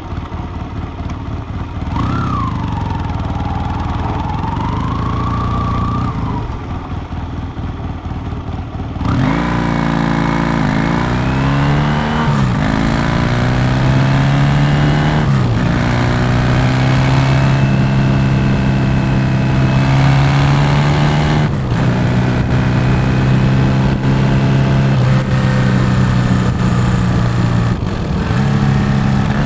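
Yamaha motorcycle exhaust while riding. At first the sound is duller and quieter. About nine seconds in it turns louder and clearer, and the revs climb and drop sharply three times, as through quick upshifts, before settling into a steady cruising note with a couple of brief dips.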